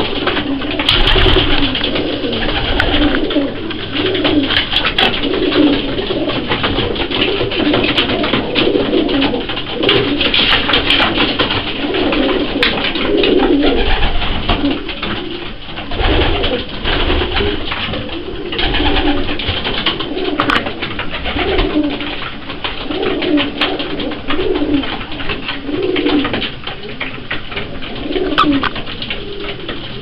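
A flock of racing pigeons cooing over and over, one coo after another about every second, with many sharp clicks as they peck at a wooden feed trough.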